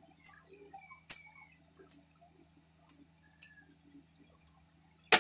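Eating by hand at a table: scattered small mouth smacks and clicks, with a sharp knock of dishes about a second in and a louder one near the end, over a steady low hum.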